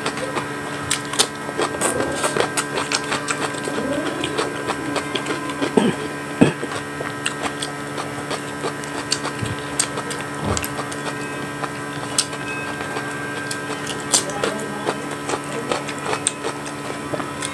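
Close-miked eating sounds: chewing, wet lip smacks and mouth clicks, irregular and continuous. A steady electrical hum runs underneath.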